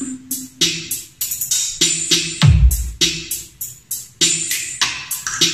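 Electronic bass sound-test track with a drum-machine beat; about two and a half seconds in, a deep bass drop sweeps down in pitch and is the loudest thing heard.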